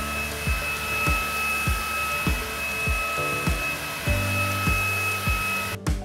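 Grundig HighForce VCP 8930 cordless stick vacuum running with its mini turbo brush: a steady rushing noise with a high whine, which cuts off suddenly near the end. Background music with a steady beat plays underneath.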